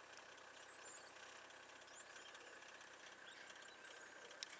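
Near silence: faint outdoor ambience with a few faint, high, brief chirps and one small click near the end.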